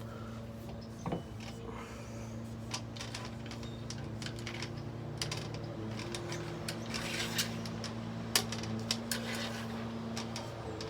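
Scattered light metallic clicks and clinks of running-board hardware being handled and shifted on its mounting brackets, over a steady low hum.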